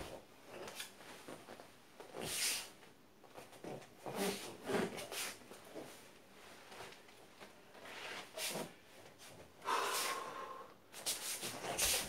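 A man's forceful breath and mouth sounds, several short hissing exhalations and snorts spaced irregularly, made in time with qigong martial-art movements. One, about ten seconds in, carries a brief steady whistled tone.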